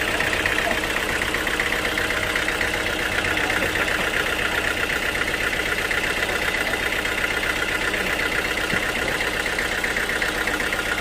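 Sawmill machinery running steadily: a continuous engine-like drone at an even level, with no break or change.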